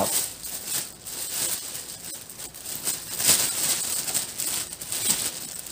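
Clear plastic wrap crinkling and rustling in irregular crackles as it is pulled and unwrapped by hand from a new shotgun.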